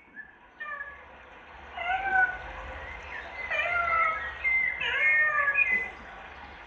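A cat meowing several times, each meow rising and falling in pitch, heard as the sound cue for the pet cat's part.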